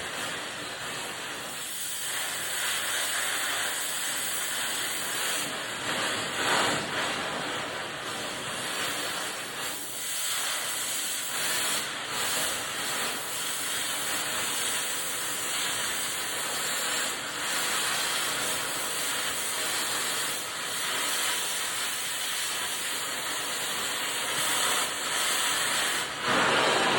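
Gas torch flame hissing steadily, swelling slightly now and then.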